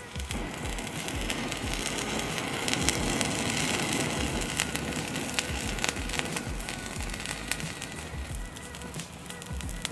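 A potassium permanganate and sugar mixture, set off by the friction of a knife blade, flaring and burning with a hissing, crackling flame. The hiss builds about a second in, is strongest in the middle and dies down near the end, with background music underneath.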